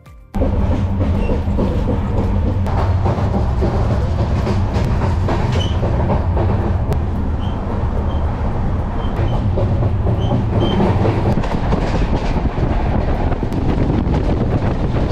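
Passenger train running along the line: a loud, steady rumble of wheels on the rails with a light clatter, cutting in suddenly just after the start.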